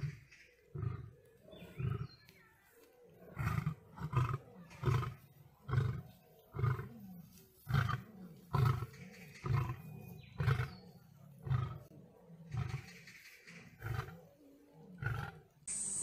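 Male lion roaring: a long series of short, low roars, about one a second.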